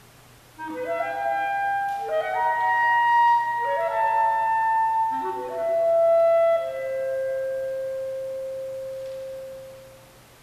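Unaccompanied clarinet playing four quick runs of notes, each climbing in steps, starting about half a second in, then one long held note that slowly fades away near the end.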